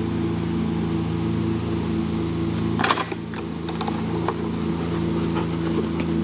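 Steady mechanical hum made of several fixed low tones, with a short loud burst of noise about three seconds in and a few clicks after it.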